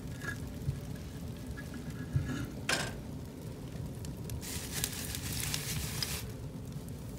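Wood kindling fire crackling and hissing in a fireplace grate, with a sharp crack about three seconds in. About halfway through, a split log is laid onto the burning kindling, with a couple of seconds of louder rustling and hissing.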